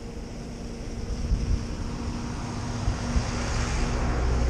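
Motor cruiser's engine running steadily as the boat approaches, growing louder, with a few low thumps of wind on the microphone.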